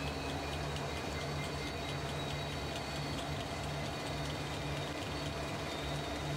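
Union Pacific SD60M diesel-electric locomotives passing at speed: a steady, pulsing engine drone with high steady whines over it, and light regular clicks of the wheels on the rail.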